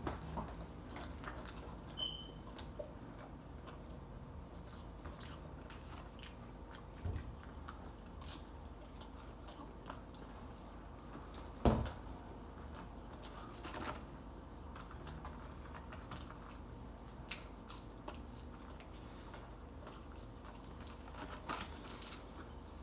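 A person eating chicken nuggets fast, with close biting and chewing sounds and scattered small clicks. A single louder knock comes about halfway through.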